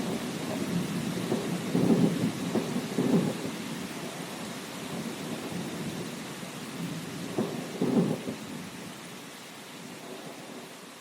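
Thunder rumbling over steady rain, swelling around two and three seconds in and again near eight seconds, then fading away.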